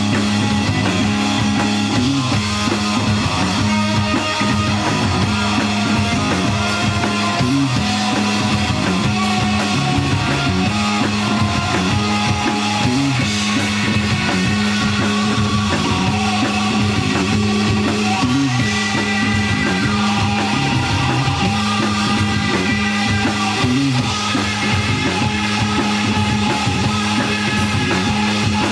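A rock trio playing live: electric guitar, bass guitar and drum kit together, loud and continuous, over a steady low held note.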